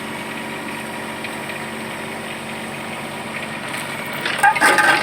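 Mini excavator's engine running steadily at idle, with a brief louder burst near the end.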